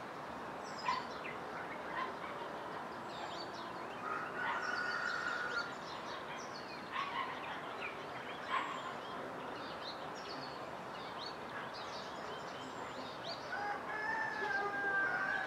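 Birds calling: a steady scatter of short chirps, with a longer drawn-out call about four seconds in and another, louder one near the end.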